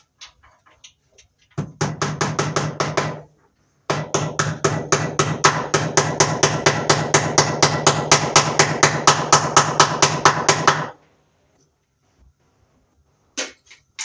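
Hammer rapidly tapping a cable staple over Romex cable into a wooden stud, about six taps a second in a short run and then a longer run of several seconds.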